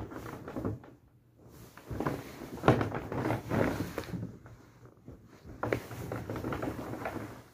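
Irregular knocks and rustling of things being handled, with one sharp knock about two and a half seconds in.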